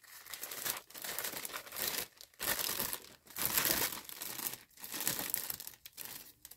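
Clear cellophane gift bag crinkling and rustling in irregular bursts as a paper craft box is slid into it and the bag is gathered around it by hand.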